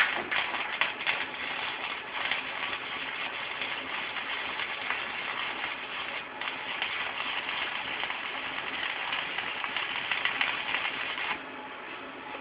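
Stick (SMAW) welding arc from a Thermal Arc Fabricator 181 multiprocess welder, crackling steadily as a bead is run, with a brief break about halfway and the arc cut off about a second before the end.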